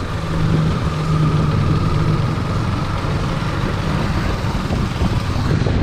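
KTM Duke 250's single-cylinder engine running steadily while riding, its note holding an even pitch.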